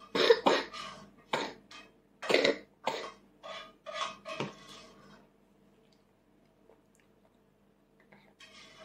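A small fork clattering and knocking against a toddler's tableware, a string of short sharp knocks over about five seconds, then it stops.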